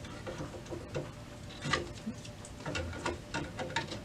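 Light plastic clicks and scrapes of an ink cartridge being slid into its slot in the print head of an HP OfficeJet Pro 7740 inkjet printer.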